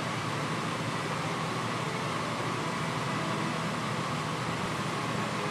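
Steady background hum and hiss that does not change, like a fan or ventilation running.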